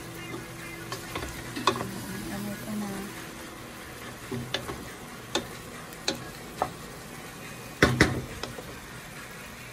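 A wooden spoon stirring chicken drumsticks in a steel pot, knocking against the pot's side every second or so, the two loudest knocks near the end, while the chicken sizzles quietly as it sautés.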